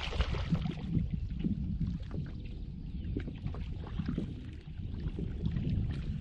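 A hooked fish splashing and thrashing at the surface close to the bank, loudest right at the start, over a steady low rumble of wind and water.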